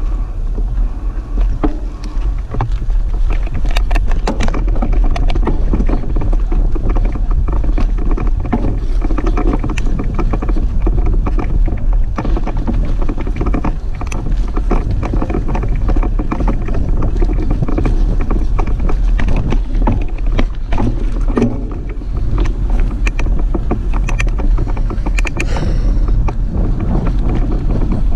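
Mountain bike riding over a bumpy dirt trail: a steady rumble of wind and rolling tyres on the microphone, with frequent rattles and knocks from the bike jolting over the ground.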